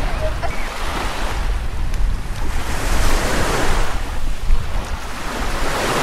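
Small waves breaking and washing up the sand at the water's edge, the surf swelling about halfway through and again near the end, with wind rumbling on the microphone.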